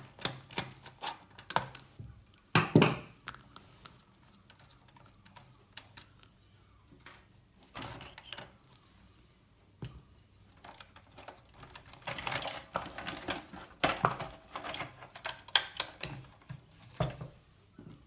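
Irregular clicking and clattering of small tools and hard plastic parts as the wheels are taken off a Tamiya CW01 RC monster truck, with a few louder knocks about three seconds in and a busier run of clicks past the middle.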